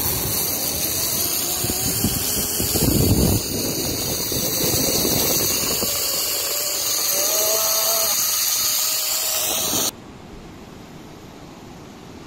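Zip line trolley whirring along the steel cable, with loud wind rushing over the microphone and a heavy gust of wind buffeting about three seconds in. A faint whine rises in pitch around seven to eight seconds. Everything cuts off suddenly near ten seconds, leaving a much quieter steady hiss.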